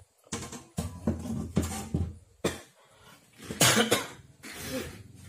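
A person coughing several times in short separate bursts, the loudest about three and a half seconds in.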